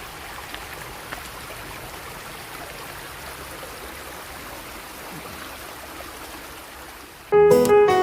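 A brook running steadily, water flowing over stones. Near the end, louder music with plucked strings and piano starts suddenly.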